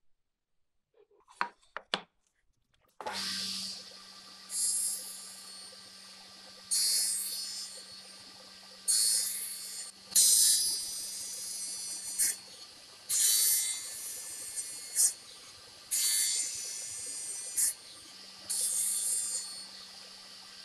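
Table saw running steadily while an oak board is fed sideways over the low blade. About eight separate cutting passes, each a loud rasping burst of a second or two, as the blade shaves grooves across the board's face.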